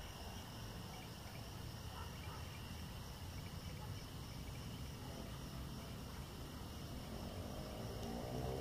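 Crickets chirping in a steady, continuous high trill. Near the end, background music begins to fade in.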